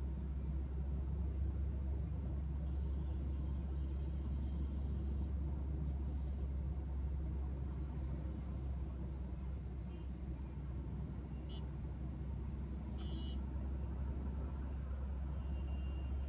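Steady low road and engine rumble heard inside the cabin of a car driving on a highway, with a few brief, faint high-pitched tones over it.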